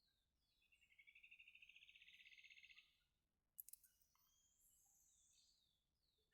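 Faint birdsong: one bird gives a fast trill of about ten notes a second that swells for about two seconds, with short high chirps from other birds around it. A sharp click comes just after the trill.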